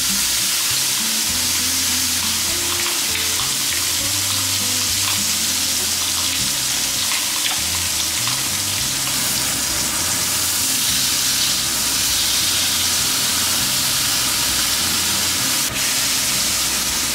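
A tied beef roast sizzling loudly and steadily as it sears in hot beef fat in a frying pan, with soft background music underneath.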